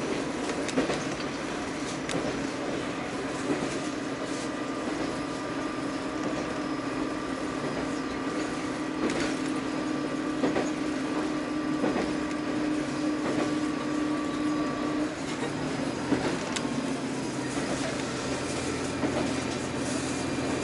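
Interior sound of a diesel railcar running along the line: a steady engine drone and rumble with occasional wheel clacks over rail joints. About three-quarters of the way through, the engine's held note stops and a lower steady note takes over, as the engine's load changes.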